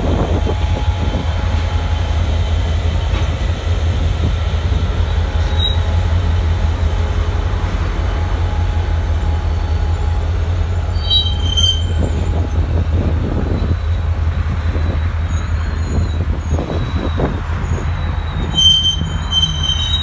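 A slow freight train passing close by. The Union Pacific diesel locomotives give a steady low engine rumble, then the boxcars roll past. High, thin wheel squeals come in briefly about 11 seconds in and again near the end, as the wheels come off the curve of the wye.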